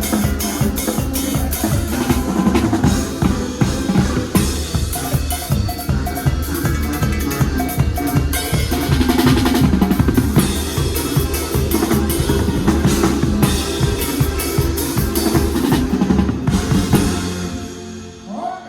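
Live drum kit with kick, snare and cymbals, played fast and dense over a sustained bass line, during a band's sound check. The playing stops near the end and rings away.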